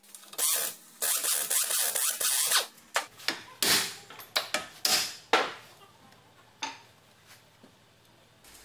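Impact wrench rattling in a long burst of about two seconds, then several short bursts, loosening the fasteners that hold the steering knuckle and tie-rod end. A few faint clicks follow near the end.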